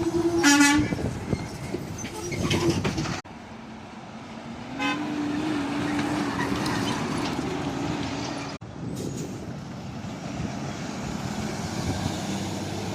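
Truck air horn blasts over road traffic: a short blast at the start, another about two and a half seconds in, then a long steady blast of about four seconds.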